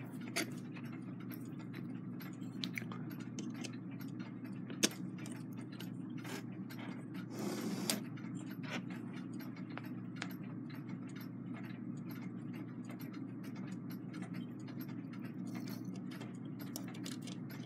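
Light, irregular clicks and taps of brass clock-movement parts being handled and fitted onto the movement's bottom plate, with one sharper click about five seconds in and a brief rustle near eight seconds, over a steady low hum.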